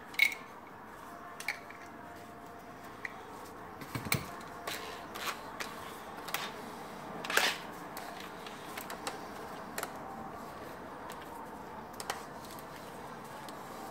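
Scattered metal clicks and clacks of slip-joint pliers gripping and twisting a seized cordless drill chuck, with louder knocks near the start, about four seconds in and about seven and a half seconds in.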